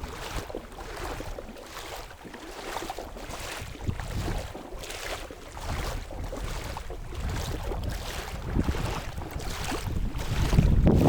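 A boat hull being dragged across the beach in repeated pulls, a scraping stroke about every two-thirds of a second, with wind on the microphone growing louder near the end.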